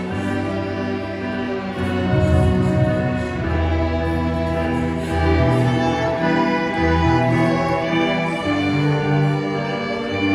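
Student string orchestra of violins and cellos playing, held notes in the violins over a low cello line that moves from note to note.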